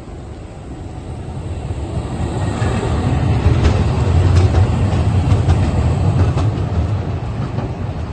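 A Škoda 15T low-floor tram passing close by on street track: a low rumble that builds as it approaches, is loudest about four seconds in with a run of clicks from the wheels over the rail, then eases off as it moves away.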